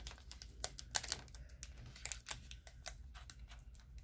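Fingers handling and picking at a sealed plastic face-mask packet: irregular faint clicks and crinkles of the wrapper, with a sharper click about a second in.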